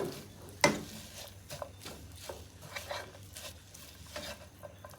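A utensil stirring and scraping tuna filling around a frying pan, in irregular scrapes and light knocks, the strongest about half a second in.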